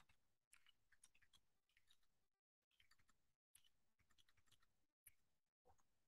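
Faint typing on a computer keyboard: quick clicking keystrokes in short runs with brief pauses between them.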